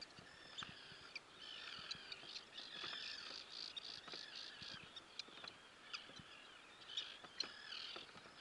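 Faint calls of a flock of feeding birds over open water: many overlapping high chirps and short cries throughout, with scattered small clicks.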